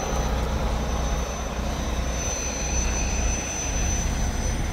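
Detroit Series 60 inline-six turbo-diesel of a 1993 Freightliner FLD120 dump truck idling steadily, with a thin high whine held over the low engine sound.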